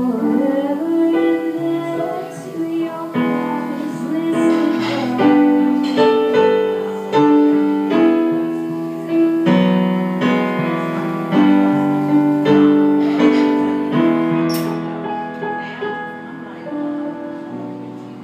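Yamaha electric stage piano played live through a PA speaker: chords struck one after another, each fading away before the next.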